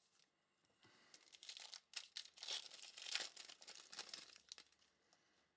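The wrapper of a basketball trading-card pack being torn open and crinkled by hand, starting about a second in and dying away near the end.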